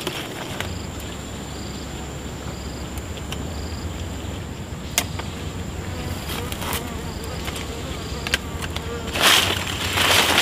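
Insects buzzing: a low buzz that starts just after the beginning, over a steady high drone and a short high chirp repeating a little under once a second. A burst of rustling comes near the end.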